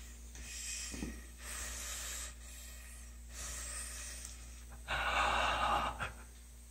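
Breathing in and out through a freshly placed 5.5 endotracheal tube in an awake, intubated person: several airy breaths of about a second each, the loudest about five seconds in.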